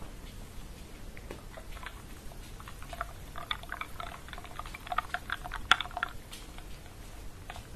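Close-up drinking from a mug: a run of small wet sips, mouth clicks and swallows, bunched over about three seconds in the middle.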